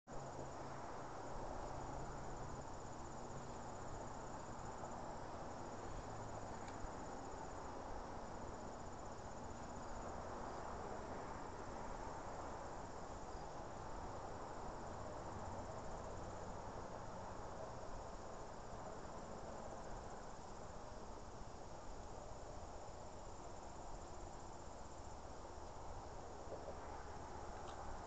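Insects chirring outdoors: a thin, high trill that breaks off and resumes every few seconds, over a steady low background hiss.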